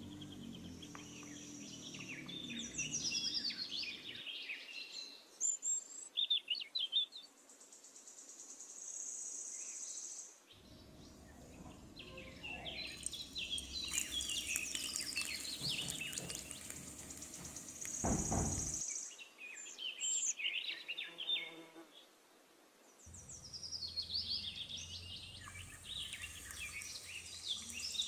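Outdoor birdsong, many short chirps, over a high steady insect drone that fades in and out, with a single low thump a little past the middle.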